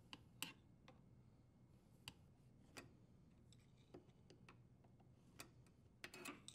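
Faint, sparse clicks and light taps from hand tools and dishwasher parts being handled, with a quick cluster of clicks near the end.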